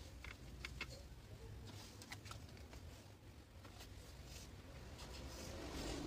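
Faint, scattered clicks and taps of small hand tools and parts being handled on a workbench, over a steady low hum.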